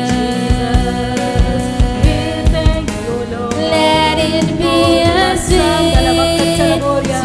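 Christian worship music: voices singing a melody over a band, with a bass line and a steady drum beat.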